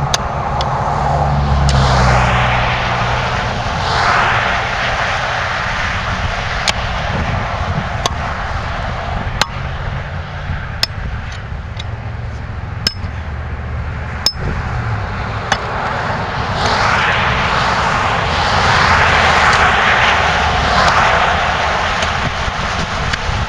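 Vehicles passing on a road, with two shorter passes in the first few seconds and a longer, louder stretch in the second half. Sharp clicks or clinks sound at a steady spacing of about a second and a half through the middle.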